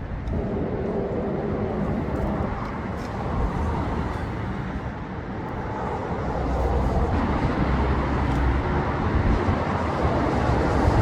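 Minsk 125's single-cylinder two-stroke engine running, getting a little louder about six seconds in.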